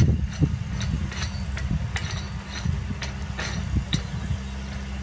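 Light metal clicks and taps, a few a second, as a brass fitting with a T-handle is turned and threaded by hand, over a steady low rumble. The clicks die away near the end.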